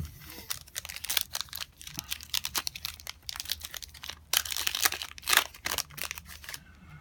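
Foil wrapper of a trading card pack crinkling and tearing as it is opened by hand, in a run of irregular crisp rustles, loudest a little past the middle.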